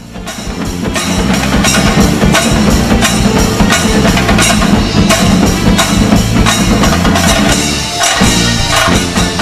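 Logo-intro music with a steady percussive drum beat, fading in over the first second.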